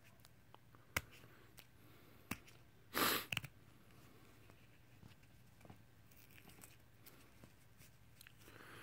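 Paper coin-roll wrapper of a half-dollar roll being picked at and torn open at one end by fingers: a few faint clicks and crinkles, with a short tear about three seconds in.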